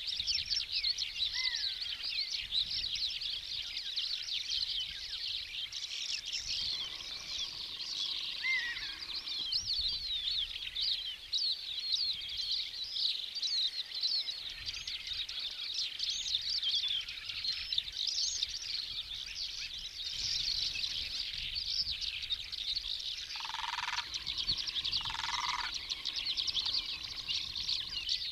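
A dense chorus of many small birds chirping and trilling at once, with two short harsher calls near the end.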